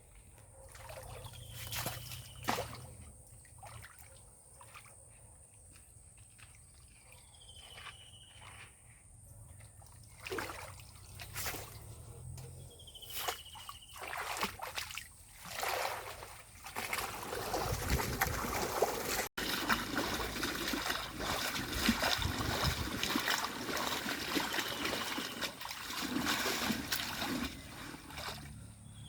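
Water sloshing and trickling, with scattered knocks in the first half and a fuller, continuous splashing wash through the second half. A short, high, falling call repeats every few seconds over a steady high whine.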